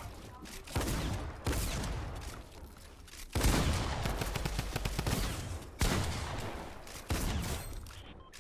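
Several bursts of rapid gunfire, each starting suddenly and trailing off, the loudest about three and a half seconds in.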